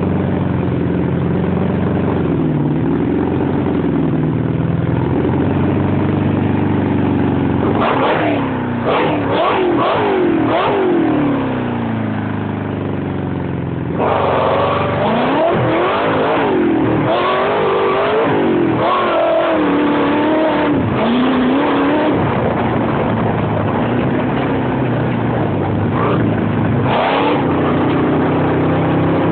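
The buggy's 400 hp 40-valve V8 engine, heard from the driver's seat, running steadily at first, then revved up and down again and again in quick rises and falls of pitch for several seconds at a time, with another short rev near the end.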